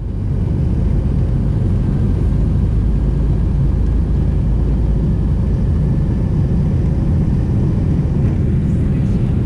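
Airliner cabin noise while the plane moves on the runway: a loud, steady low rumble.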